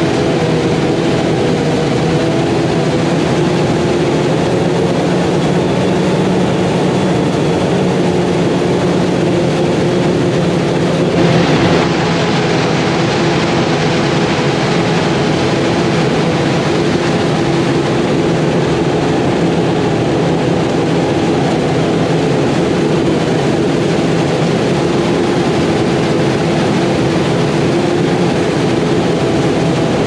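Claas Jaguar self-propelled forage harvester chopping corn silage, running steadily at full load alongside the tractor pulling the silage wagon: a loud, even machine hum with several steady tones, changing in tone about eleven seconds in.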